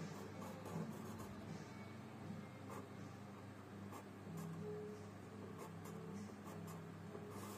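Charcoal pencil scratching on drawing paper in a series of short, irregular strokes, faint.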